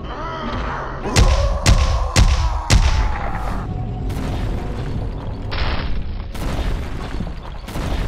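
Cartoon impact sound effects: four heavy booming thumps about half a second apart over a drawn-out tone that slowly falls, then a rumbling noise of crashing earth and debris as giant fists pound the ground.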